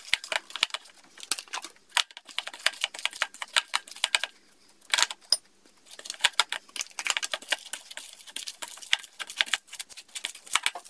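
Crunchy slime of small beads bound with glue crackling and clicking in quick, irregular pops as it is stirred with a spatula and kneaded by hand in a plastic bowl. The crackling briefly eases a little before halfway, then comes back with a loud cluster of pops.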